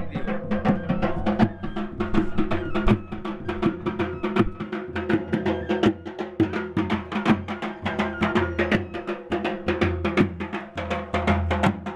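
Dhol barrel drums beaten in a fast, driving rhythm under a held, droning melody from a wind instrument, a folk dance band playing.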